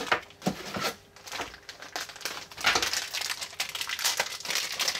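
Plastic packaging crinkling and rustling as it is handled, in irregular bursts of rustle with a short lull about a second in.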